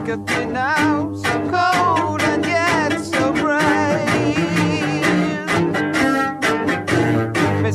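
Music: an instrumental passage led by bowed strings, cellos and violins, with wavering melody lines played with vibrato over sustained low notes and a regular pulse of short strokes.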